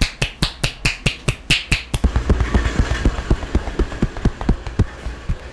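Rapid rhythmic massage strikes from a barber's hands: sharp, crisp slaps about six a second, changing about two seconds in to duller thuds about five a second, as in percussive back tapping.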